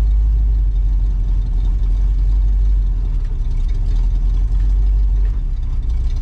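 Car engine idling steadily with a strong low hum, its idle just turned up during tuning; it eases off slightly near the end.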